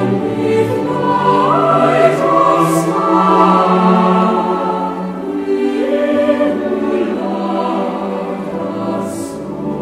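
Choir singing slow, held chords, the notes shifting in steps from one chord to the next.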